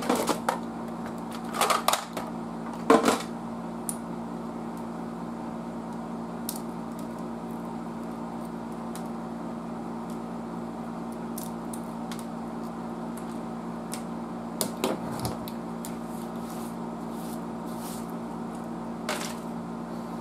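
Clicks and clatters from hands and pliers working the knobs and rotary switches of a 1936 Triplett 1210A tube tester: several in the first three seconds, then a couple more later on. A steady low hum runs underneath.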